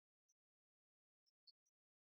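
Near silence, broken by four very faint, short ticks.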